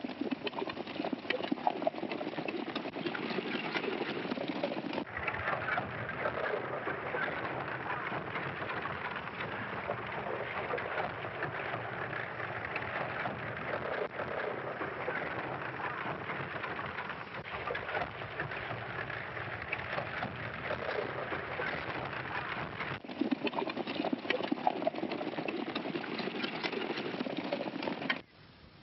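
Horse-drawn wagon on the move, a dense clatter of wheels and hooves that shifts abruptly at cuts about five seconds in and again past twenty seconds. It cuts off sharply just before the end.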